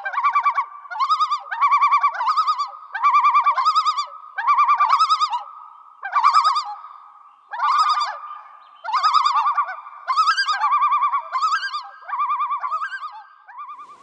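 Loon tremolo calls: fast, wavering, laugh-like phrases repeated one after another with short pauses between them.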